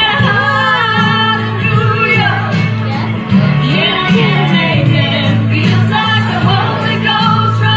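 A woman singing into a handheld microphone over backing music, holding long, bending notes.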